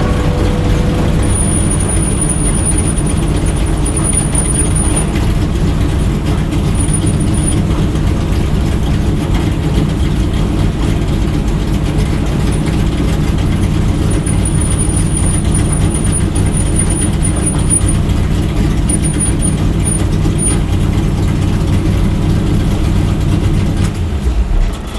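Stock car's V8 engine running steadily at low revs, heard loud from inside the cockpit as the car rolls slowly down pit lane. The engine sound drops away near the end as the car comes to a stop.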